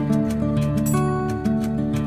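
Background instrumental music: an acoustic guitar picking a series of notes.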